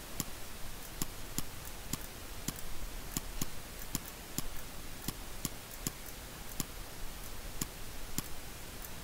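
Computer mouse clicking: a string of short, sharp clicks at an uneven pace, roughly two a second, over a faint steady hiss.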